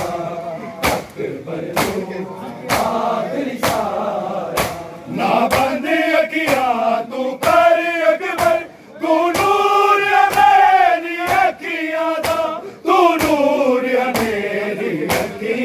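A crowd of men chanting a Shia mourning lament (noha) together, with a sharp beat of hands struck on bare chests (matam) about once a second.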